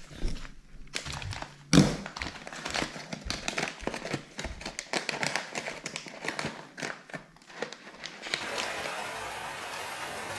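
A bag of coffee beans being handled: crinkling packaging and many small taps and clicks as the beans are moved, with one sharp knock about two seconds in. A steady hiss begins near the end.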